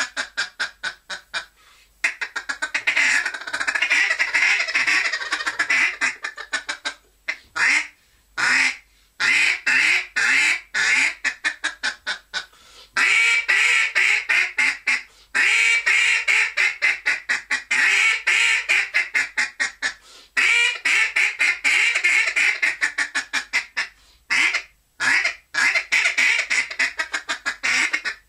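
A Cadence duck call blown in a hunting sequence that imitates a hen duck. Runs of rapid quacks and fast chatter are broken by short pauses.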